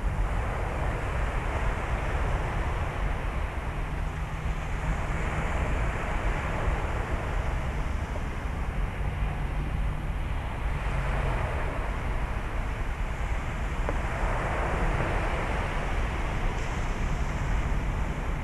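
Surf washing on the beach, swelling and fading every few seconds, with steady wind noise on the microphone.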